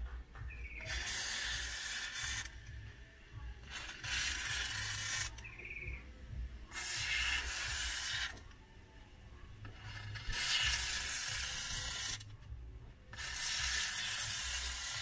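Aerosol can of AC cleaner spraying foam through a thin tube onto a car's cabin air filter: five hissing bursts of one to two seconds each, with short pauses between.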